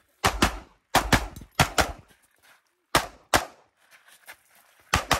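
Pistol shots fired in close pairs: about ten sharp reports, with short pauses between the pairs and a brief echo after each.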